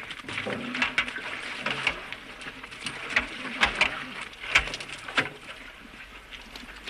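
Wet splashing with scattered knocks, including a few sharp knocks about three to five seconds in.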